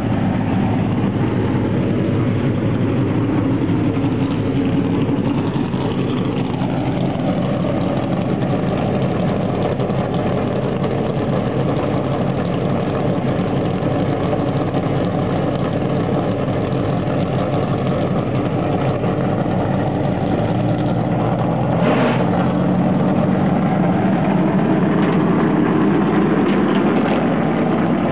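NASCAR stock car V8 engines idling with a steady, loud rumble. A brief sharp sound cuts through about 22 seconds in.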